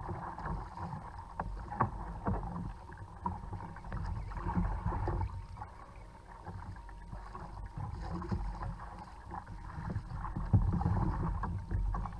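Water splashing and rushing against the hull of a plastic fishing kayak as it moves through choppy sea, uneven with each wave, over a low wind rumble on the microphone.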